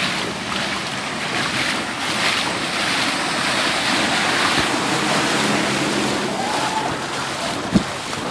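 Steady loud rush of heavy rain and flash-flood water, with one sharp knock near the end.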